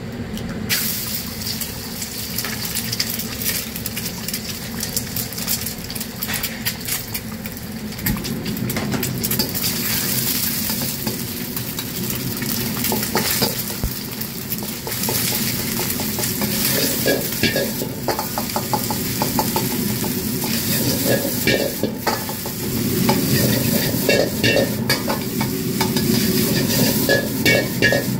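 Egg and then rice sizzling in hot oil in a wok, stir-fried with a steel wok ladle that clatters and scrapes against the pan. The ladle strikes come thicker and louder in the second half as the rice is tossed.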